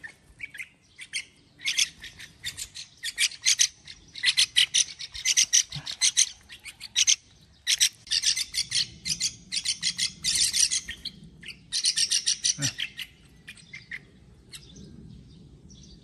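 Young bulbuls begging while being hand-fed: rapid runs of short, high, harsh chirps, several a second, coming in bursts and dying away near the end.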